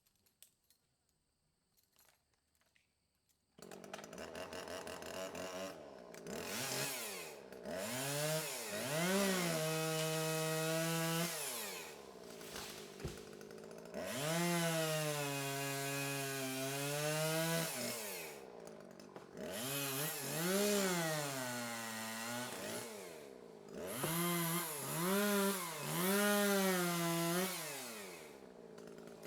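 Chainsaw cutting small trees. After a few seconds of near silence it comes in suddenly, then revs up and down over and over, its pitch sagging and holding low for a few seconds at a time as the chain bites into the wood.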